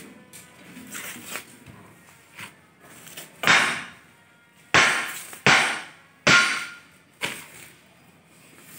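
Long iron digging bar jabbed down into a hole in hard ground to bore an earthing pit, striking five times about a second apart in the second half, each blow with a short ringing tail. Softer knocks come before them.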